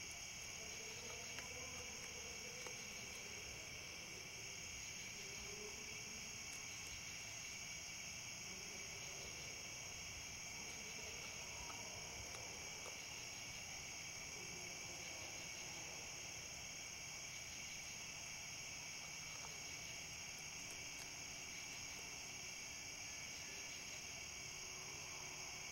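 Steady, high-pitched chorus of night insects chirring without a break, with a couple of faint clicks near the start.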